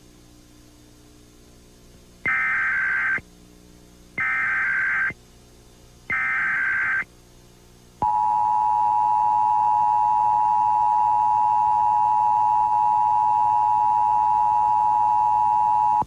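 Emergency Alert System SAME header: three warbling digital data bursts, each about a second long and a second apart. These are followed by the EAS two-tone attention signal (853 and 960 Hz), a loud steady tone held for about eight seconds, opening a Required Monthly Test alert. A faint low hum lies under the quiet first two seconds.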